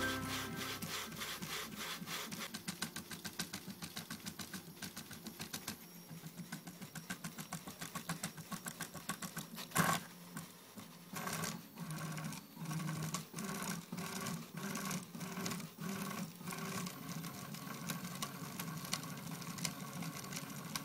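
Stepper motors of a homemade RepRap Prusa 3D printer driving its axes and extruder in an unloaded dry run: rapid ticking, then one sharp click about halfway, then a string of short pitched buzzes, each under a second, stopping and starting as the motors make brief moves.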